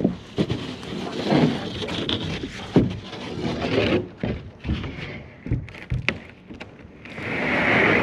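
OSB roof-sheathing sheet being handled on a wooden roof deck: knocks, thuds and footsteps on the sheathing with scraping between them. Near the end comes a longer, louder scrape of the board.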